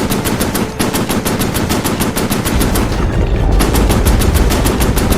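Rapid automatic gunfire, about nine shots a second, with a brief break under a second in. A deep rumble builds beneath it in the second half.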